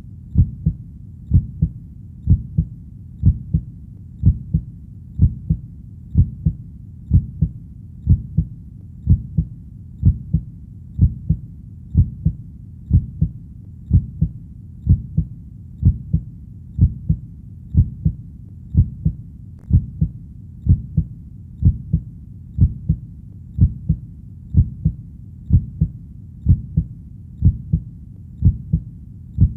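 Human heartbeat beating steadily at about one beat a second. Each beat is a low double thump, lub-dub.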